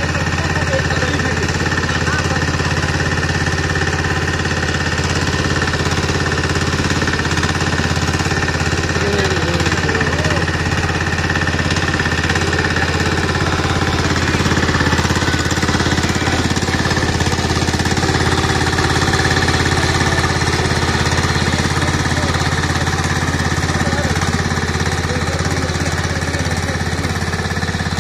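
Back-rotary power weeder's Kohler Lombardini diesel engine running steadily under load as its rear rotary tines churn through the soil.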